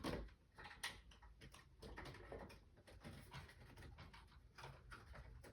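Faint, scattered light clicks and ticks of small plastic mini-blind parts being handled.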